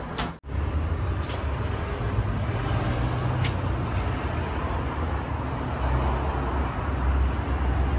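Steady low rumbling background noise with an even hiss above it and a few faint clicks. There is a brief break about half a second in.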